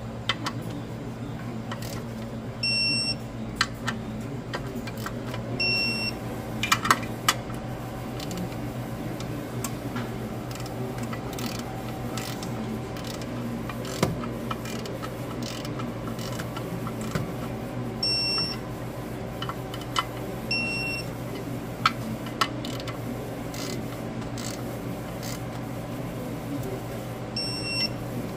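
Digital torque adapter giving a short high beep each time a clutch pressure plate bolt reaches the set torque, five times in all. Between the beeps come sharp clicks and knocks of the wrench and socket on the bolts, over a steady low hum.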